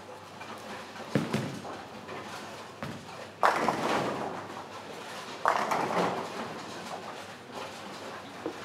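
Bowling balls hitting the pins: two loud crashes of pins about two seconds apart, each clattering away over about a second, after a single knock about a second in. A steady bowling-hall background runs underneath.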